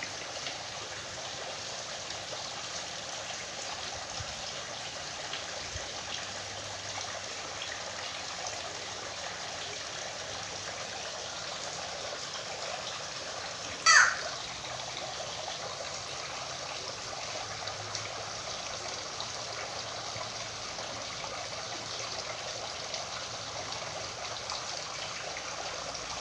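Steady trickling hiss like running water, with one short, loud bird whistle gliding downward in pitch about halfway through.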